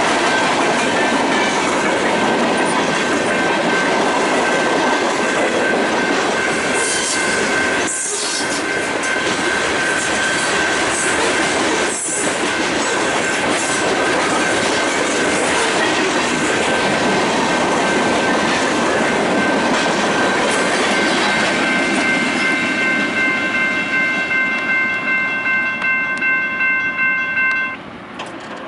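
BNSF train's cars rolling past at close range: a dense, steady rumble with a thin, steady high squeal from the wheels. Near the end the wheels beat out a rhythmic clickety-clack, and the sound drops off suddenly as the train clears the crossing.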